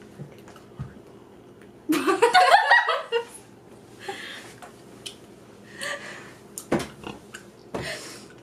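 Two girls laughing: a loud burst of laughter about two seconds in, then breathy giggles and exhaled laughs several times.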